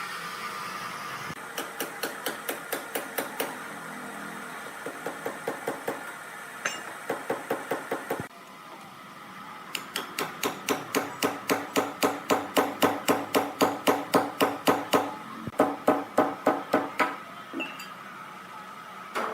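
Rapid, evenly spaced hammer-like strikes, about five a second, coming in several runs of one to five seconds with short pauses between, over a faint steady hum.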